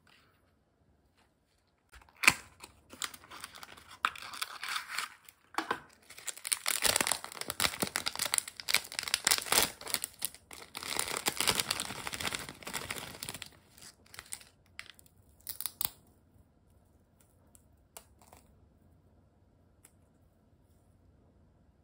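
Packaging being torn open and crinkled by hand in irregular bursts, starting about two seconds in and stopping about sixteen seconds in.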